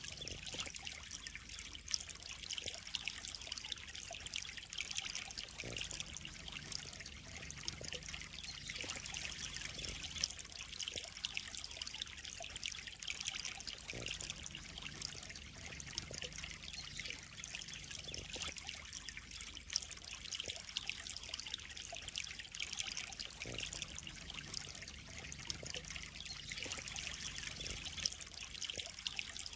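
Water trickling and splashing steadily into a koi pond, a continuous fine crackling hiss.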